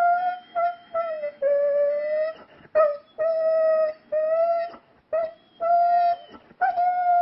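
Pet dog howling on cue, 'singing' in a series of about nine or ten held, steady-pitched notes with short breaks between them, the last note dipping in pitch and rising again.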